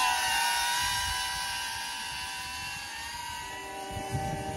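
Protek35 FPV cinewhoop drone's motors and propellers whining at a steady high pitch, fading as it flies away. Music fades in near the end.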